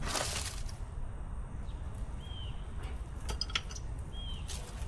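A bird repeating the same short chirp about four times, over a steady low rumble of background noise. There is a brief rustle at the start and a few light clicks in the middle.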